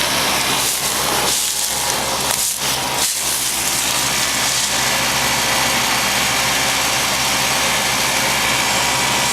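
1989 Lennox heat pump's outdoor unit running in cooling mode: a steady hum from the compressor under the even rushing of the condenser fan.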